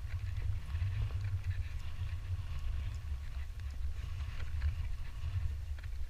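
Wind buffeting the camera's microphone as a low, gusting rumble, with faint scattered footsteps on the stony path.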